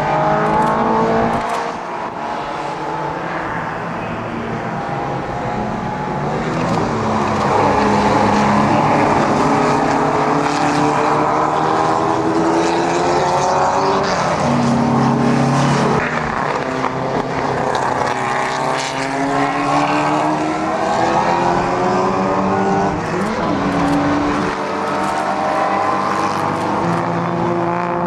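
Several historic racing cars at full throttle together, their engine notes overlapping and repeatedly rising as they accelerate, then dropping at gear changes.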